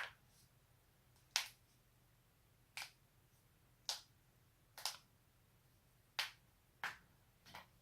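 Human joints cracking: about eight sharp pops, roughly one a second at uneven gaps, a couple of them as quick double pops.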